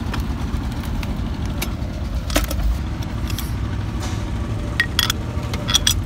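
A steady low engine rumble runs under light metallic clicks and clinks of steel gearbox parts being handled. The clicks come once about two and a half seconds in and in a small cluster near the end.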